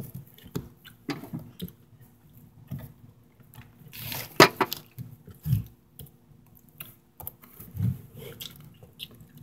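Handling noise: scattered knocks, clicks and rustles as the recording device is moved and touched, the sharpest click about four and a half seconds in, over a faint steady hum.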